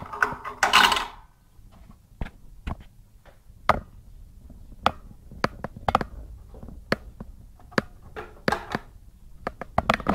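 A chain-stitch attachment being handled and seated in the rotating hook of a Janome 618 sewing machine. It starts with a scraping rub of metal parts in the first second, then gives scattered sharp metallic clicks and taps at irregular intervals.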